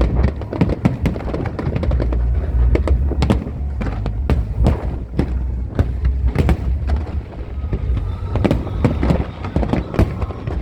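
Fireworks going off in quick succession: many sharp bangs and crackles over a steady low rumble, with show music playing along.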